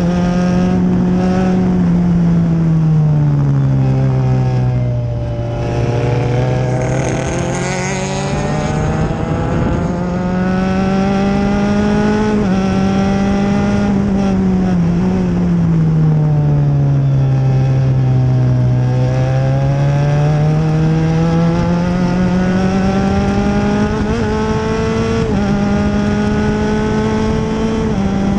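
Open-wheel formula race car's engine heard from onboard at racing speed, its pitch dropping twice as the car slows for a corner and climbing again as it accelerates out.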